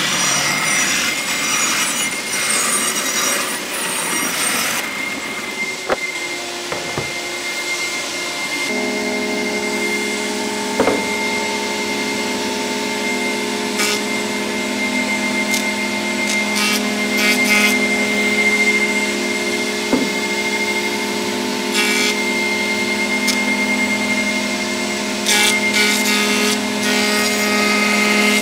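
A bandsaw cutting through a salvaged oak panel for the first few seconds. Then a Charnwood planer runs with a steady hum, louder at times as the oak boards are fed across the cutters.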